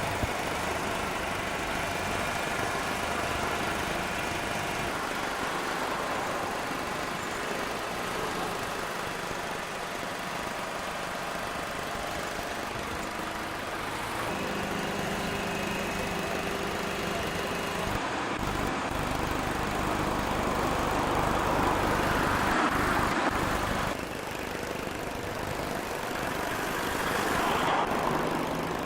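Engines of heavy vehicles running and idling with a steady hum, swelling louder twice in the later part.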